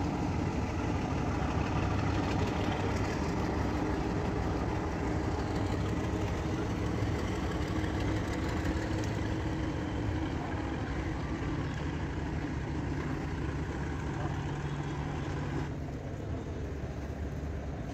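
An engine running steadily at idle, a continuous low hum.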